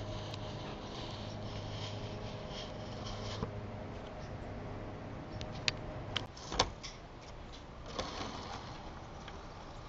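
HO-scale model train's small electric motor humming steadily, stopping about six seconds in, followed by a few sharp clicks.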